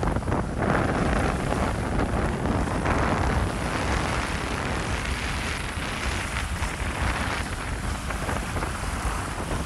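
Wind buffeting the microphone, with small lagoon waves washing onto a sandy shore, the wash swelling and fading every few seconds.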